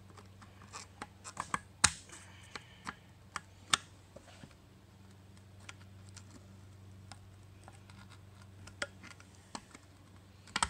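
Needle-nose pliers clicking and scraping against a wheel rim while working a clip-on wheel weight loose, over a faint low hum. The scattered sharp metal clicks are loudest about two seconds and four seconds in, with a few more near the end.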